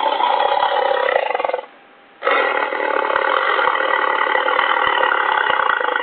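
Torvosaurus dinosaur sound effect: a call of about a second and a half, then, after a short pause, a longer call of about four seconds.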